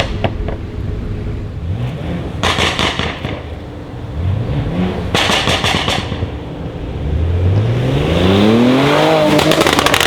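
Mercedes GLE43 AMG's twin-turbo V6 with an aftermarket Armytrix exhaust, blipped twice, each short rev followed by a rapid volley of loud exhaust crackles and pops. Near the end comes a longer, steadily rising climb in engine speed, which ends in more crackling.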